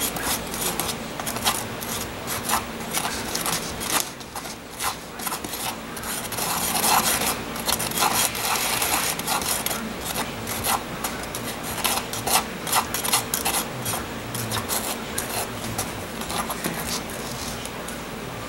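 Metal spatula stirring thick precast concrete slurry in a small cup: a continuous run of rubbing scrapes with small clicks as the blade works against the cup.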